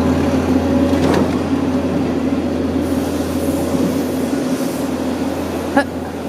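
Steady low engine drone of a heavy vehicle running nearby, with two faint knocks, one about a second in and one near the end.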